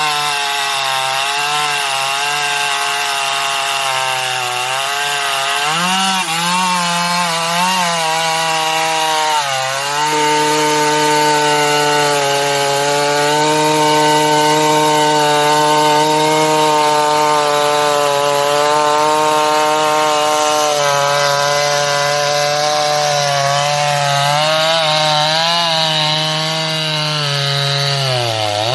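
Chainsaw running at high revs, cutting through a very large log. The engine note sags and recovers as the chain loads in the wood, with a deeper dip near the end.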